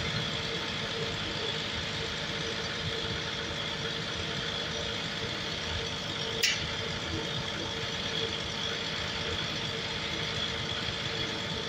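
Fire truck engine idling steadily, with a constant hum and a high whine over it. A single sharp knock about six and a half seconds in.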